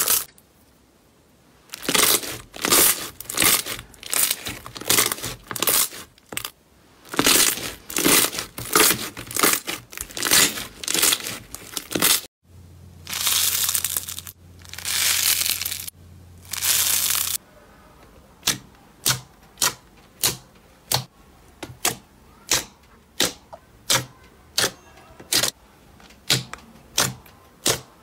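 Slime being squeezed and pressed by hand, giving crackling, crinkly squishes in quick bursts, then a few longer swishes. From about two-thirds of the way in it turns to a steady run of short, crisp pops, a little more than one a second.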